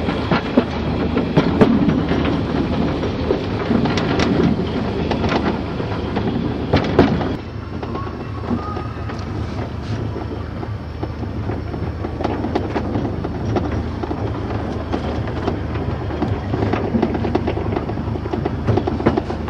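Narrow-gauge train running along the line, its wheels rattling and clicking over the rails with a steady low rumble. Rougher and louder for about the first seven seconds, then steadier and a little quieter.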